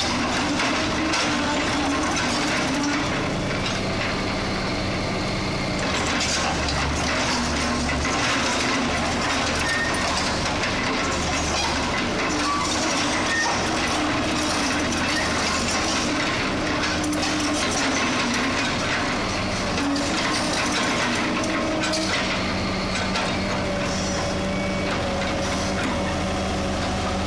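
Hitachi hydraulic excavator's diesel engine running with a steady hum while the boom and bucket are raised and swung.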